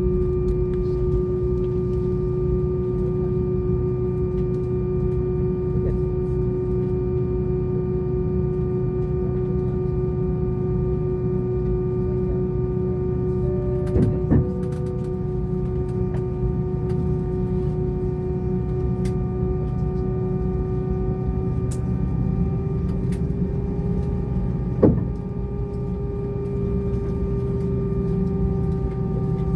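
Steady cabin drone inside an Airbus A320 on the ground after landing: low rumble with several steady engine and air-system tones, the main tone rising slightly in pitch about two-thirds of the way through. Two brief knocks, about halfway and a few seconds later.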